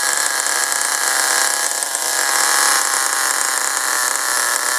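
Small glow-fuel nitro engine of an RC buggy idling steadily after start-up, a buzzy, high-pitched running sound.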